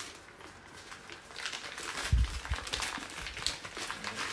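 Tissue paper crinkling and rustling as it is pulled and handled out of a handbag, starting about a second in, with a single dull thump about two seconds in.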